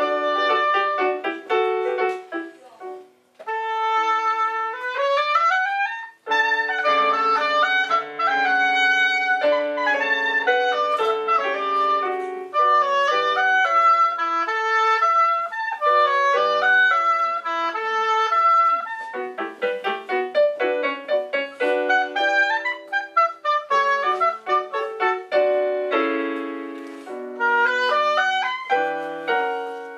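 Clarinet playing a melody over digital piano accompaniment, with a quick rising run about four seconds in.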